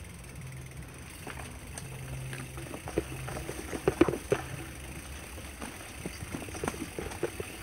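Mountain bike rattling over a rough dirt singletrack, with irregular knocks and clatters as the wheels hit bumps and stones, loudest about four seconds in, over a steady rolling hum.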